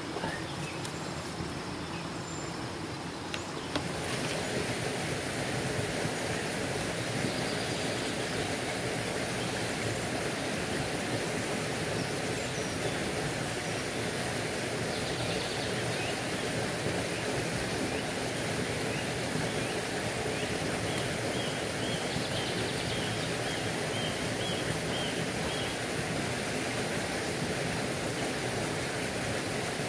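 Steady rush of a shallow creek running over rocks, a little louder from about four seconds in. A short run of faint high chirps comes about two-thirds of the way through.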